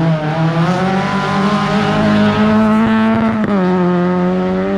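Rally car engine held at high revs, its pitch nearly steady, then dipping sharply about three and a half seconds in before holding steady again.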